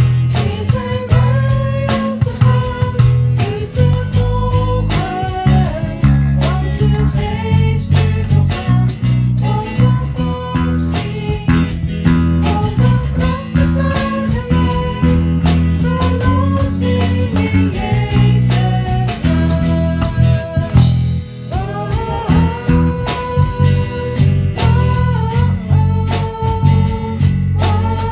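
Guitar-driven worship song with bass and a gliding melodic lead line.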